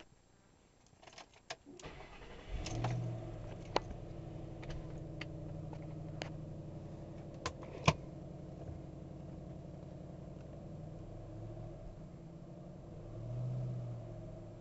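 2008 Ford Mustang GT's 4.6-litre V8 on its stock exhaust, heard from inside the cabin with the windows up: after a few clicks the engine starts about two and a half seconds in with a brief flare, then settles to a steady idle. A few sharp clicks sound over the idle, and a short light rev swells near the end.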